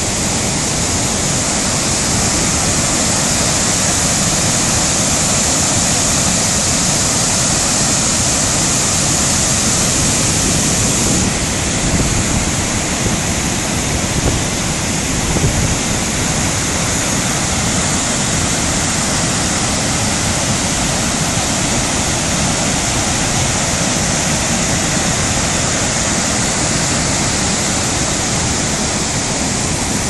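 A waterfall and river rapids rushing, a loud, steady noise of falling and churning water.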